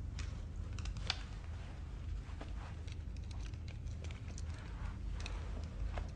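Tense room tone: a low steady hum with scattered faint small clicks and rustles.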